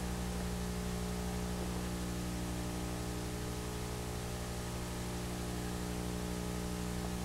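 Steady electrical hum and hiss, the noise floor of a camcorder videotape recording, with nothing else standing out.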